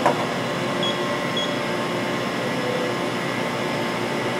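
Mori Seiki NL-2500 CNC lathe moving its tool turret along the Z axis: a steady machine hum with faint steady whining tones. A brief knock comes right at the start, and two short high beeps follow about a second in.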